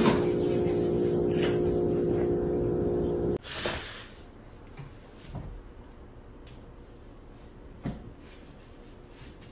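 A steady hum made of several even tones for about three and a half seconds, cutting off abruptly. Then a quiet room with a few soft thumps and taps as a cat moves and jumps on a hard floor.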